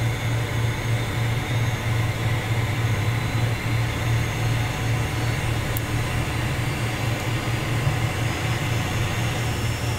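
Steady cabin noise of the Cessna Citation Mustang's Pratt & Whitney Canada PW615F turbofan engines heard from the cockpit, with a strong low drone: the right engine running while the left engine spools up through its start cycle.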